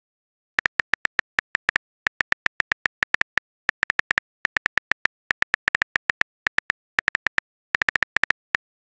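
Phone keyboard typing sound effect: a rapid, uneven string of short clicks, one per letter, in short runs with brief gaps, as a text message is typed out.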